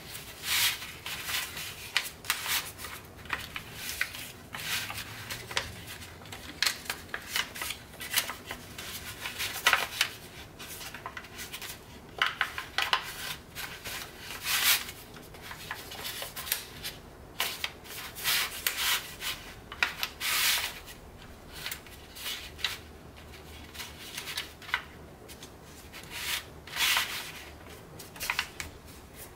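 A sheet of Tant origami paper being creased and pressed flat by hand as the twist folds of a tessellation are collapsed. Fingers rub across the pleats, making irregular short rustles and crinkles of paper.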